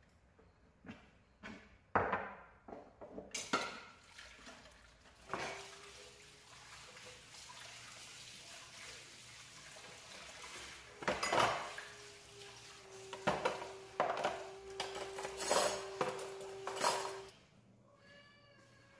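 Dishes and cutlery clattering and clinking as they are handled and washed in a kitchen sink, with water running for several seconds in the middle. A steady tone sounds under the clatter for several seconds in the second half.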